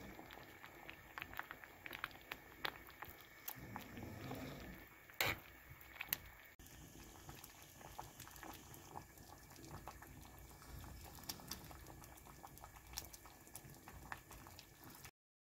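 Spicy seafood soft tofu stew boiling in a pot, with many small bubbling pops. Two sharper clicks come about five and six seconds in, and the sound cuts off abruptly just before the end.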